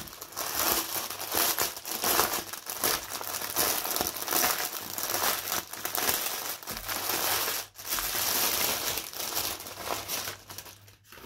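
Clear plastic packaging crinkling and rustling as it is handled and pulled open, with two brief pauses in the second half.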